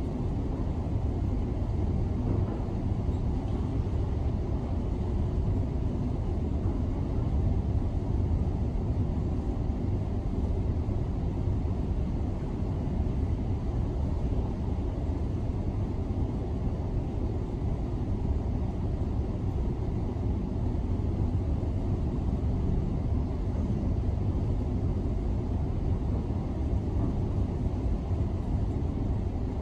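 Steady low rumble of heavy demolition equipment, heard through closed window glass, with no distinct knocks or breaks.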